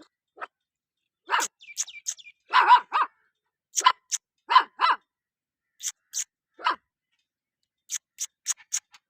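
Stray dogs barking during a fight: irregular short barks, with a quick run of five or six short, high-pitched yelps near the end.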